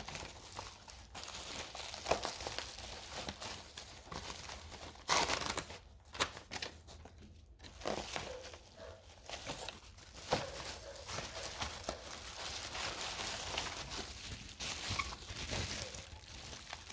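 Packaging being handled and unwrapped: irregular crinkling and rustling, with sharper crackles, the loudest about five and ten seconds in.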